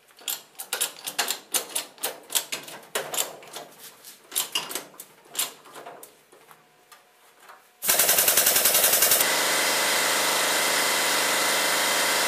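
Hydraulic bottle jack on a benchtop plastic injection press being pumped by its long handle: irregular metal clicks and knocks, several a second. About eight seconds in, a loud steady machine whir starts abruptly, pulsing quickly for its first second, and it is the loudest sound.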